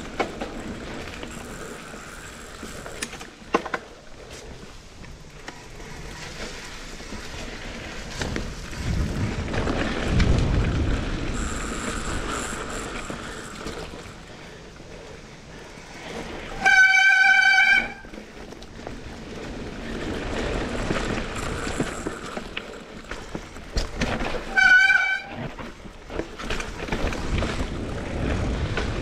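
Mountain bike brakes squealing twice over the rattle and tyre noise of riding a dirt trail: a loud, steady, high-pitched squeal lasting about a second past the middle, and a shorter, wavering one about eight seconds later.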